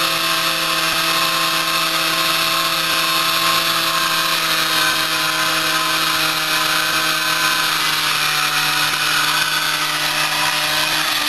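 Suzuki PV moped's small single-cylinder two-stroke engine held at high revs in a burnout, its rear tyre spinning against the pavement. It runs steady at one pitch with a hissing edge, sagging slightly near the end.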